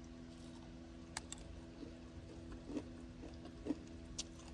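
Faint steady low hum with a few scattered soft clicks.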